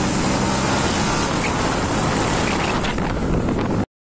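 A motor vehicle running close by: a steady low engine drone under loud rushing road noise, which cuts off suddenly near the end.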